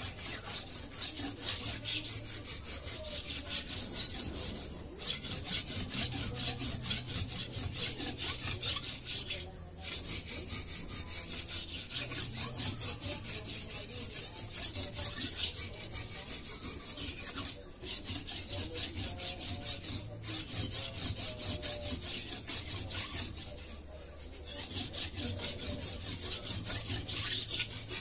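Parang blade stroked briskly back and forth on a coarse river-stone whetstone: a rhythmic rasping scrape, about three strokes a second, with a few brief pauses.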